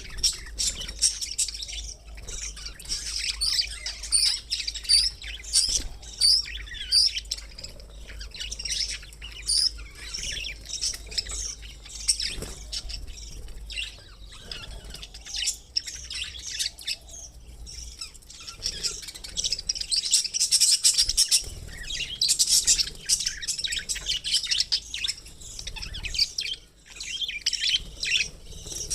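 Pet budgerigars chirping and chattering continuously in rapid, high-pitched twitters, busiest about twenty seconds in, over a faint low hum.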